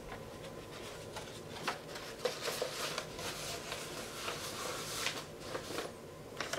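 Paper chef's hat rustling and crinkling as it is handled and pulled onto the head: a run of light, scattered crinkles.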